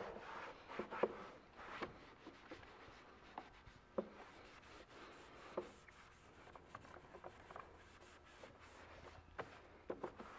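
Shop towel wiped by a gloved hand over plastic engine-bay covers, spreading dressing: faint rubbing and scuffing, broken by a few short soft taps.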